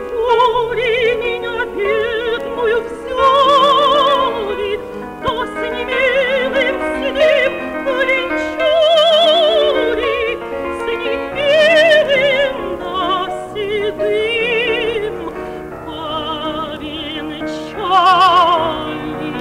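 A female contralto sings a Russian romance in operatic style over piano accompaniment, holding long notes with a wide vibrato.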